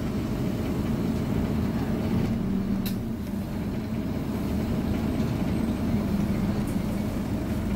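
Scania OmniCity double-decker bus engine running with a steady low drone, heard from inside the passenger cabin. A brief sharp sound comes about three seconds in.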